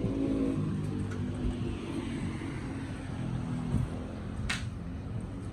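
Low engine rumble of a motor vehicle, strongest in the first couple of seconds, with one sharp click about four and a half seconds in.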